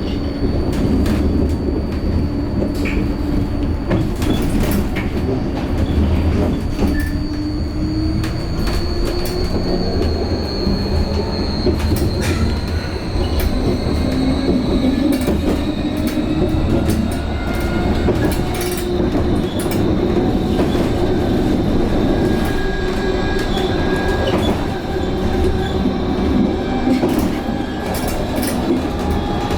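Vossloh-Kiepe Tramlink electric tram running along the line: a steady rumble with whining tones that slowly slide up and down in pitch as the tram changes speed, and sharp clicks as the wheels pass over rail joints.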